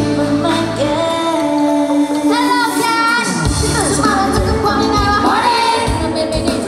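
Girl group singing a Thai pop song live, several female voices over a live band. About a second in the drums and bass drop away, leaving the voices nearly alone, and the full band comes back in about three and a half seconds in.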